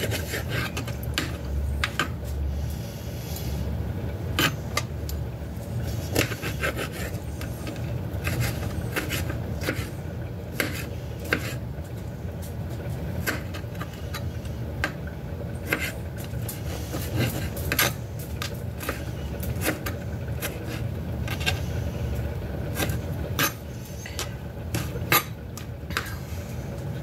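Kitchen knife dicing tomatoes on a cutting board: irregular taps of the blade against the board, with some scraping, over a low steady hum.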